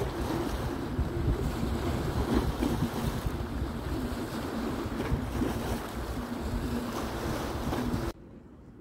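Wind buffeting the microphone over sea waves washing against the rocks: a steady rumbling rush that cuts off suddenly near the end, leaving a much quieter background.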